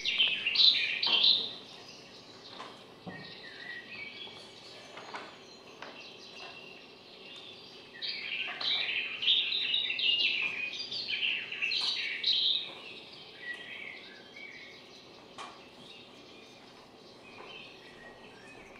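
Small birds chirping and twittering in quick high calls, busiest in the first second and a half and again from about eight to thirteen seconds in, with sparser chirps between.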